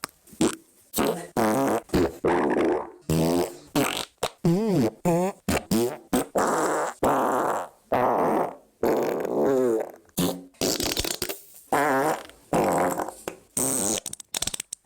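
A rapid string of about twenty fart sounds, one after another. Each is a short buzzing burst whose pitch wavers up and down, with brief silent gaps between them.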